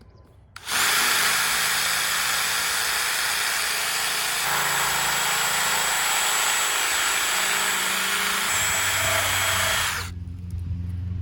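Power cutting tool running steadily for about nine seconds as it cuts away the inside of a buried PVC drain pipe, starting just under a second in and stopping about a second before the end.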